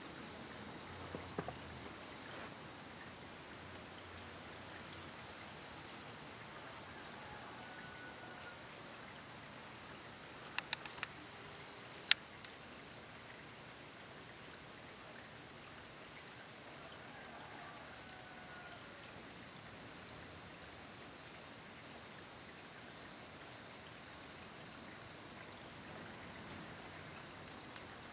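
Steady rain falling, with a few sharp drip taps: a small cluster about a second in, another around the middle, and the loudest single tap just after it.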